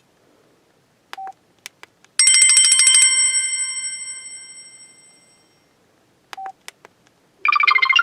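Samsung Convoy 4 phone playing ringtones through its speaker. After a short key beep and a few clicks, a bright bell-like ringtone trills rapidly for under a second and rings away over about three seconds. Another beep and clicks follow, then the next ringtone starts near the end.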